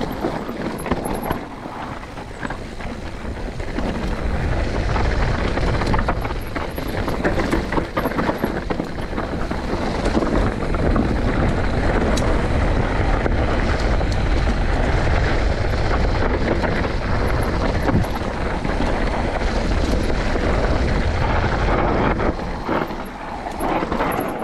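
Wind buffeting the microphone over the steady rattle and crunch of mountain-bike tyres and frame on a rough trail during a fast descent. It gets louder from about four seconds in.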